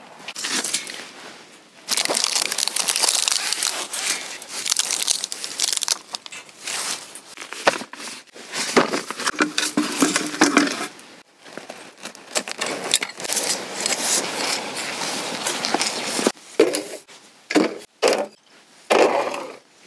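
Rustling and crinkling from camping gear being handled and set up, with scattered clicks and knocks, broken by a few short pauses.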